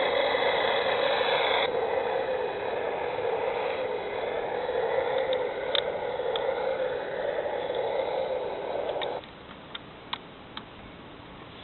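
Electronic rocket-engine sound effect from a Thunderbird 1 toy model, a steady hiss through its small speaker that cuts off suddenly about nine seconds in, followed by a few faint clicks.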